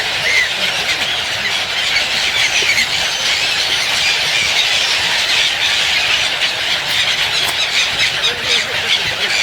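A large flock of small birds chirping and chattering all at once in a dense, unbroken din.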